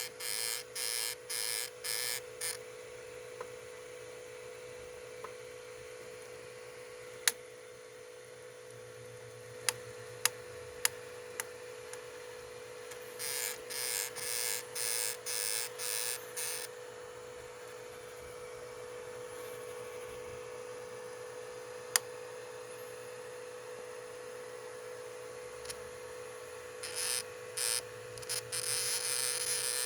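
Tronxy XY2 Pro Titan 3D printer running with a steady motor hum. Three stretches of rapid buzzing pulses come from its stepper motors moving, and sharp single knocks sound about seven seconds in, in a quick group of four around ten to eleven seconds, and once more around twenty-two seconds. The owner links the knocking to the filament jumping back in the extruder and suspects a faulty extruder.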